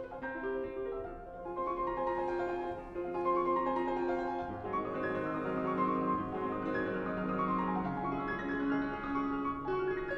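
Solo classical piano playing a passage of held notes and full chords.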